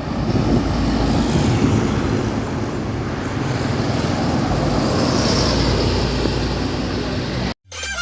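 Road traffic with tour buses passing close by: a steady engine rumble and tyre noise, with a hiss that swells about five seconds in. It cuts off abruptly near the end.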